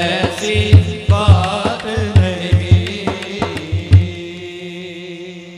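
A man singing a devotional naat, accompanied by a daf (large frame drum) beating a steady rhythm. The drum stops about four seconds in, and a held note fades out as the piece ends.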